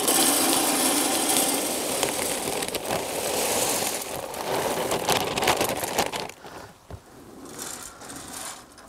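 Cherry wood pellets pouring from a plastic bag into a pellet grill's hopper: a steady rattling rush that eases off about six seconds in, followed by quieter shuffling as a hand spreads the pellets.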